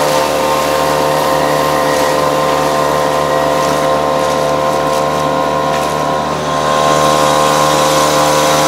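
Boat outboard motor running steadily at speed under way, with an even hiss of water and air over it; the motor dips briefly about six seconds in, then picks up again.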